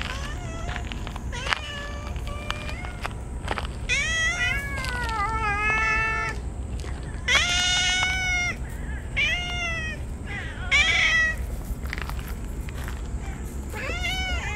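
Several stray cats meowing over and over, a string of long, drawn-out calls at different pitches, some overlapping, loudest in the middle.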